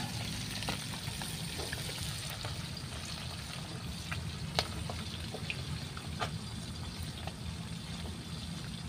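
Whole fish frying in hot oil in a wide pan over a wood fire: a steady sizzle with scattered pops and crackles, one sharper pop about halfway through.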